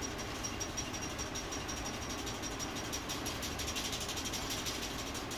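A small geared mechanism running steadily, with a light regular clicking about four times a second.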